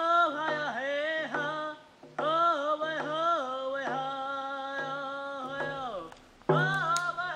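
Music with a solo singing voice in long, gliding phrases over a steady low beat, pausing briefly about two seconds in and again near the end.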